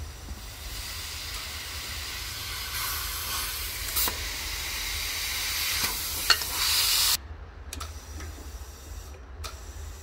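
Compressed air hissing through an inflator chuck into the inner tube of a small Jansen MB 300 wheel, growing louder with a few sharp clicks, then cutting off suddenly about seven seconds in. A steady low hum runs underneath.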